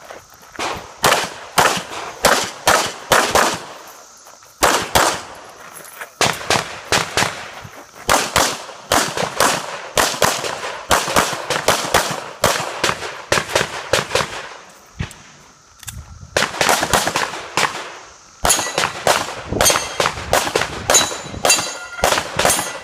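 Semi-automatic pistol fired in quick strings of shots, about two or three a second, with short breaks between strings, during a practical-shooting stage.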